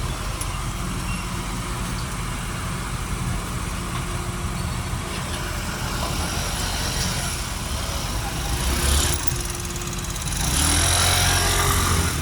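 Truck engine running steadily at idle, with a louder rushing noise about nine seconds in and again over the last two seconds.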